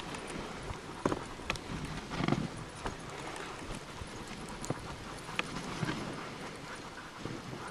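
Dog sled on the move behind a team of huskies: the dogs' paws trotting on packed snow over a steady hiss, with scattered short knocks.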